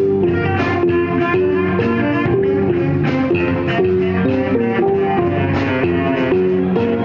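Live funk-jazz band playing an instrumental, with a guitar carrying a quick line of short notes over bass and rhythm section.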